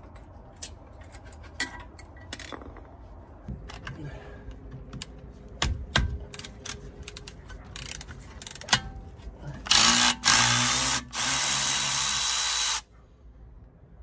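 Milwaukee cordless ratchet spinning out the front brake caliper carrier bolts in three short runs, about three seconds in all near the end. Before that, scattered metallic clicks and knocks of tools and brake parts being handled.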